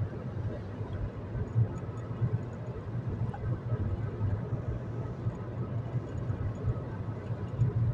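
Steady low rumble of road and engine noise inside a car cabin while driving at motorway speed.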